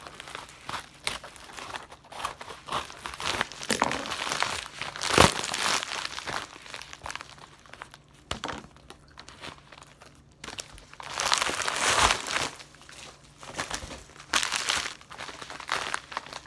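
Plastic mailer bag crinkling and rustling as it is cut open with scissors and handled, in irregular bursts, the loudest about five seconds in and again around twelve seconds, with a quieter stretch in between.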